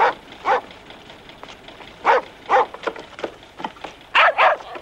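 German shepherd dog barking: loud, separate barks mostly in pairs, near the start, about two seconds in and about four seconds in, with a few weaker barks between.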